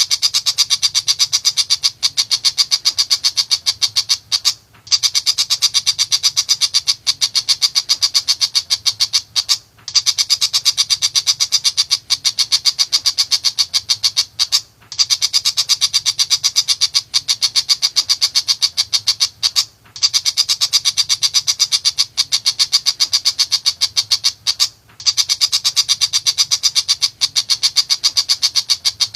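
Tiger shrike chattering, a very rapid run of harsh high notes in stretches about five seconds long with a brief pause between each.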